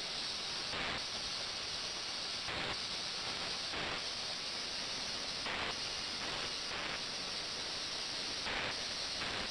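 Steady hiss and splash of a thin water stream pouring into a stainless steel bowl in a water tank, with brief louder surges every second or two.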